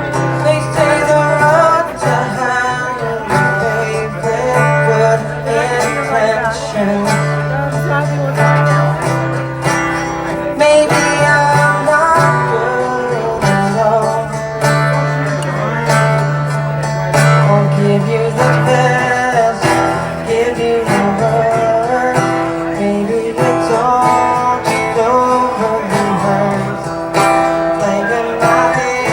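Live song performance: guitar played with a voice singing over it.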